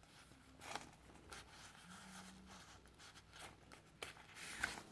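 Faint paper rustling and light handling clicks from the pages and pockets of a handmade paper junk journal being turned and shown, with a slightly louder rustle about four seconds in.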